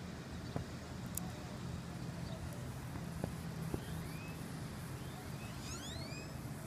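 A few faint crackles and ticks as a lighter flame burns the edge of a tortilla chip, over a steady low hum. Near the end come several short, high, arching chirps.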